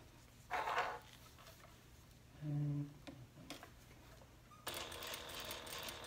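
Juki DDL-8700 industrial lockstitch sewing machine starting abruptly about three-quarters of the way in and then running steadily, edge-stitching a vinyl connector strap at long stitch length. Before it starts there are only a few brief handling noises and a click as the strap is repositioned under the foot.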